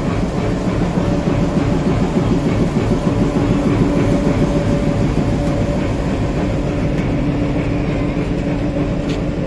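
Diesel locomotive engine running steadily at close range: a low, even rumble with a constant hum over it.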